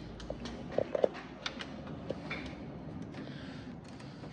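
Scattered light clicks and scrapes of a pry tool working the plastic retaining tabs of a BMW 8 Series front grille, with a few sharp ticks about a second in and a couple more near two seconds.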